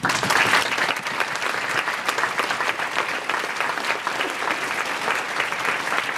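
Large audience applauding, many hands clapping at once. The applause starts suddenly and keeps up steadily.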